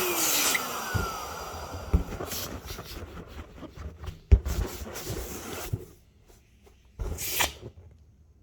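An electric balloon pump's motor winds down as it is switched off, its whine falling in pitch and fading in the first half-second. Rubber balloon handling and rubbing follow, with a few sharp knocks, then a short rustle near the end.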